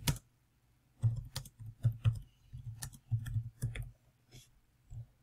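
Typing on a computer keyboard: a couple of keystrokes, a pause of about a second, then a steady run of keystrokes for about three seconds, trailing off into two faint taps.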